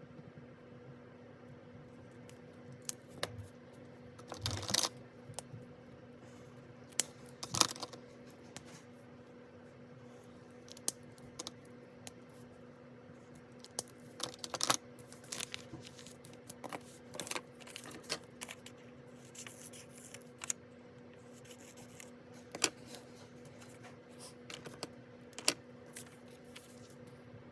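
Scattered taps, clicks and short rustles of paper and stationery being handled on a desk while a planner is worked on, over a faint steady hum.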